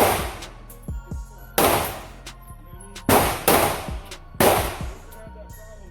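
Five gunshots at irregular intervals, each a sharp crack with a short echoing tail, two of them close together about three seconds in.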